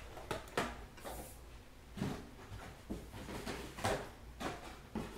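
Trading cards and packs being handled on a table: irregular light taps and rustles, the sharpest about half a second in, at two seconds and near four seconds.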